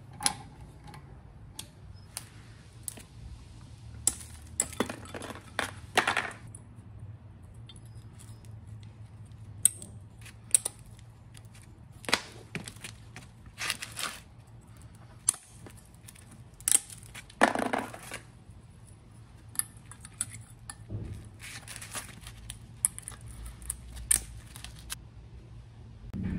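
Irregular sharp metallic clicks, clinks and short scrapes as a rear brake caliper bracket and its stainless pad clips are handled and pressed into place.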